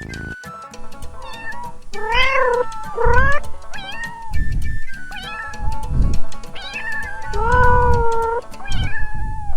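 Domestic cat meowing repeatedly, a string of bending, drawn-out meows one after another.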